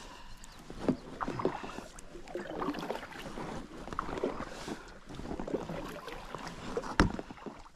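Inflatable kayak being handled on the water: irregular knocks, clicks and water splashing, with one sharp knock near the end.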